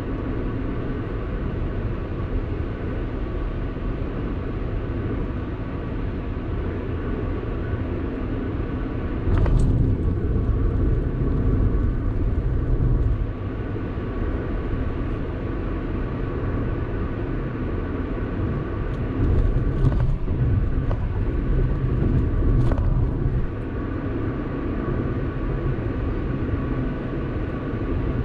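Car driving along a highway: a steady rumble of tyres and engine, swelling louder twice for a few seconds.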